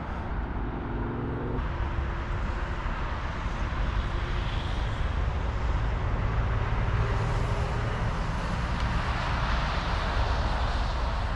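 Road traffic on a busy roundabout: a steady wash of car engines and tyre noise, swelling in the middle as heavier vehicles, a lorry among them, pass by.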